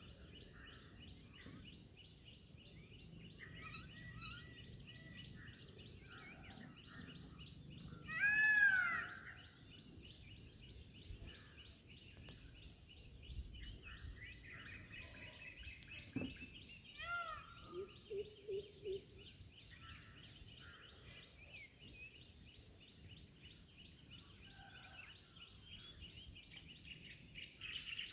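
Outdoor bird chorus of quick chirps over a steady high whine, with one loud arched peacock call about eight seconds in. Fainter calls come later, including a run of about five short low notes.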